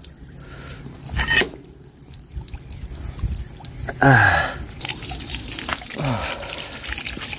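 Tap water pouring and splashing onto a forged steel cleaver blade lying on wet concrete, with a brief louder sound about four seconds in.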